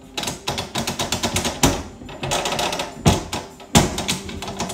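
A removable cover being worked by hand against its aluminium mounting bracket: quick clattering clicks and rattles, with a louder knock about a second and a half in and two more near the end.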